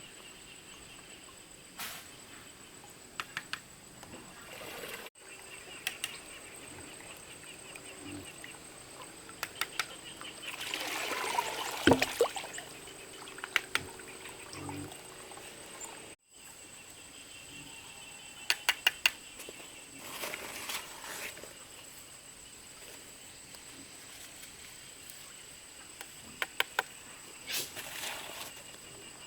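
Insects chirping steadily in the background, with scattered sharp clicks and knocks. A louder rush of noise comes about ten to twelve seconds in.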